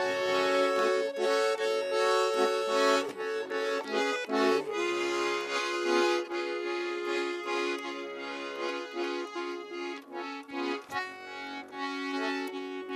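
Button accordion playing an instrumental passage of a folk song, a melody over held bellows chords.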